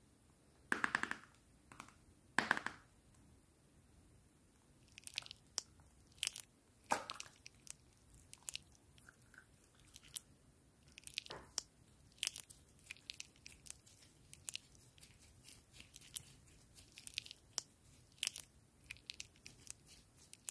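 Butter slime squeezed and kneaded by hand, with frequent short, sticky crackles and pops. Two louder bursts of crackling come about one and two and a half seconds in.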